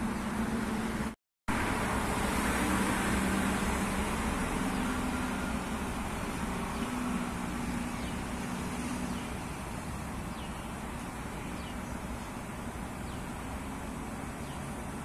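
Steady road traffic noise, louder for the first several seconds and then easing off, with a brief drop-out about a second in.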